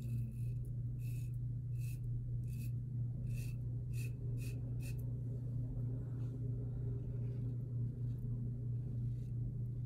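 Open-comb double-edge safety razor with a Gillette blade scraping through lathered stubble on the cheek in short strokes, about eight in the first five seconds, then fainter ones. A steady low hum runs underneath.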